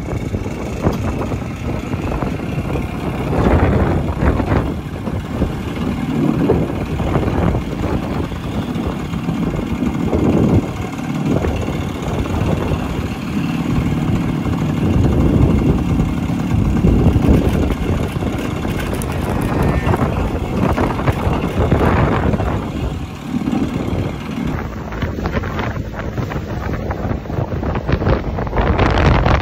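Heavy wind buffeting the microphone of a Vespa scooter on the move, in gusts that swell and fade, with the scooter's engine and road noise running underneath.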